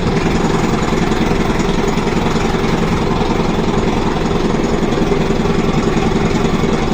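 An engine running steadily at a constant speed, loud and unchanging.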